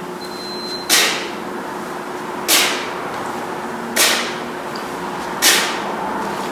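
Sharp hissed exhales from a person doing one-arm kettlebell swings, one at the top of each swing, four of them about a second and a half apart, over a steady low hum.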